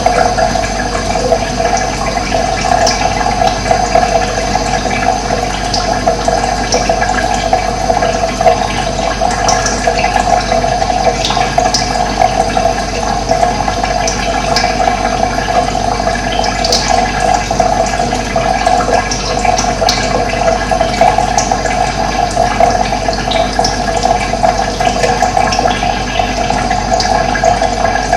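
Steady rush of running water, with brief high bird chirps scattered through it.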